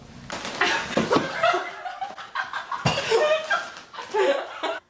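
Several young people laughing hard in bursts, with a dull knock about three seconds in; the laughter cuts off abruptly just before the end.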